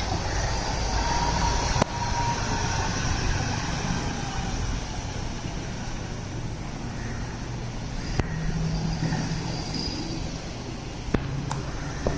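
Single-decker city buses running and manoeuvring nearby: a steady engine drone with road noise, a faint whine in the first couple of seconds and a few short clicks later on.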